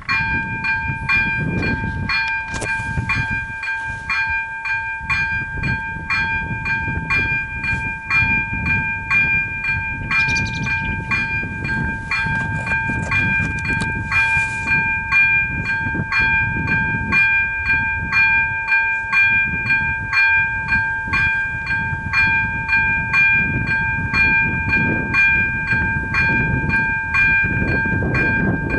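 Electronic warning bell of an AŽD 97 level-crossing signal starting up and ringing in an even rhythm, about two dings a second, a bright ringing tone with overtones. It is the warning that a train is approaching and the crossing is closing.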